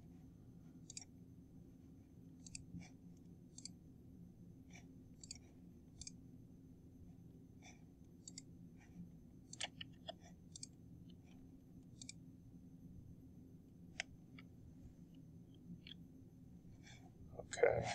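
Faint computer mouse clicks, scattered irregularly, over a low steady hum.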